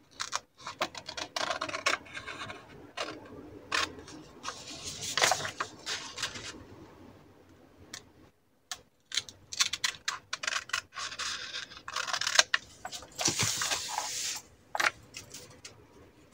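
Scissors cutting through a sheet of paper: a run of short, crisp snips with paper rustling as it is turned, a pause of about two seconds near the middle, then more cutting.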